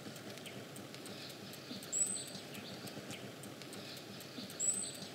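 Quiet street ambience with scattered light clicks, and two identical short high-pitched chirps about two and a half seconds apart.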